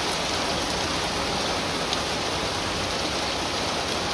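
Hailstorm: hail and rain falling steadily, a dense even hiss of stones and drops hitting the ground, with one sharper tick about two seconds in.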